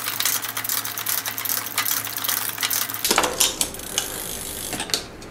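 Rapid metallic clicking and rattling of bicycle parts being worked on by hand, over a low hum that stops about three seconds in.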